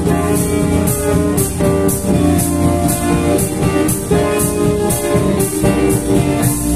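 Live band playing an instrumental: keyboard chords, electric guitar and bass guitar over a drum kit, with a steady beat on the cymbals.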